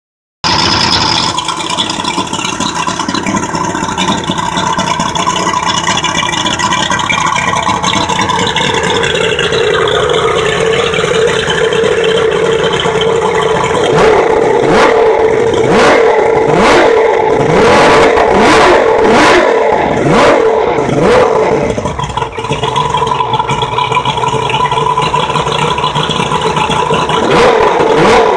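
200 hp Mariner V6 two-stroke outboard running on its freshly rebuilt carburetors. It holds a steady speed at first, is blipped through a string of quick revs in the middle, then settles back to a steady run.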